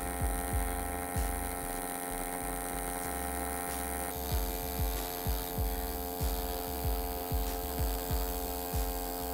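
AC TIG welder arc buzzing steadily while welding aluminum, a constant electrical hum with a fixed pitch and overtones.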